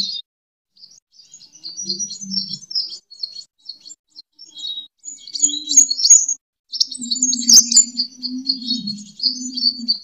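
Rapid, high-pitched chirping and twittering of sunbirds (Indonesian 'kolibri') in fighting calls, coming in dense bursts after a brief silence at the start. A sharp click sounds about seven and a half seconds in, and a low hum runs under the later part.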